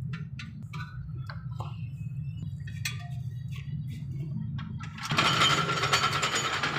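Light metallic clicks and clinks from handling brake caliper parts and a slide pin, over a steady low hum. About five seconds in, a much louder, dense sound starts.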